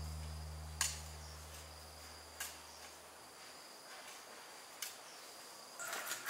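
Insects chirring steadily on high tones, with the last low notes of background music fading out over the first few seconds and a few sharp clicks.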